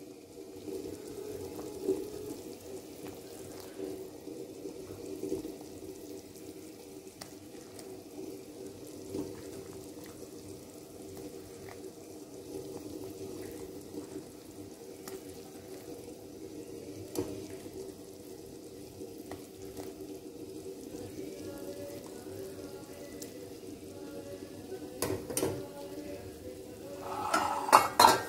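Sugar syrup boiling hard in a wide pan with rajbhog balls cooking in it: a steady bubbling hiss with a steady hum underneath. Near the end it grows louder for a couple of seconds.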